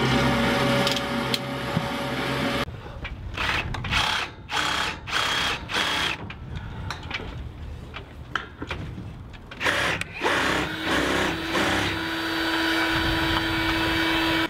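Cordless drill running in a string of short bursts, then held in a steady whir for the last few seconds, drilling bolt holes through the yacht's deck to mount the solar arch.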